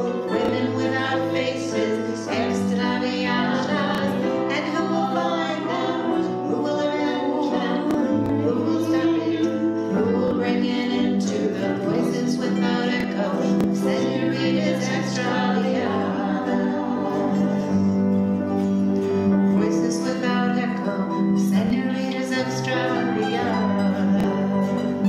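Live acoustic folk music: autoharp, acoustic guitar and piano playing together, with a woman singing.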